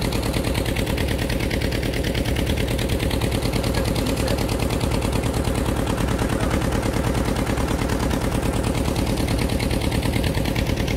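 Motorboat engine running steadily under way, with a rapid, even beat.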